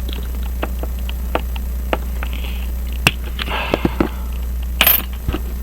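Small metal clicks and scrapes from a pocket watch case being handled as its front bezel is worked off, with a sharper click about three seconds in and a brief scrape near the end, over a steady low hum.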